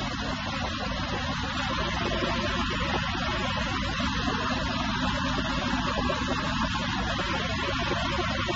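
Huron KU6 knee-type milling machine running with a steady hum and hiss, its table traversing under power feed.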